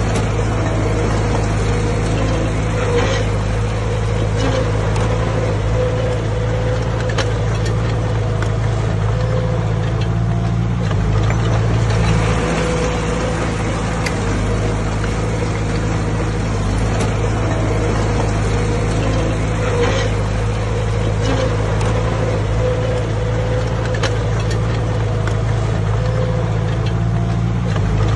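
Heavy earthmoving machine's diesel engine running steadily, with a few sharp clicks now and then.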